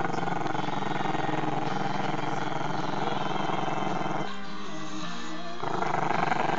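A small Maltese-Shih Tzu puppy growling in one long, continuous rattling growl. For about a second just past the middle, the tone changes, becoming smoother and more tonal.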